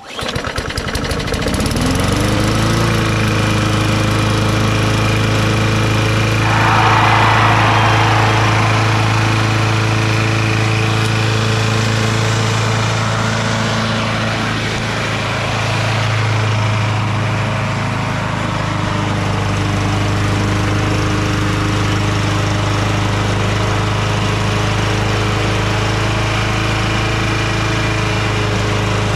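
A Craftsman push mower's 5 hp Tecumseh single-cylinder four-stroke engine catches and speeds up over the first two seconds, then runs at a steady speed, with a brief hiss about seven seconds in. It is running while blowing heavy smoke, which the owner suspects comes from a crankcase overfilled with oil.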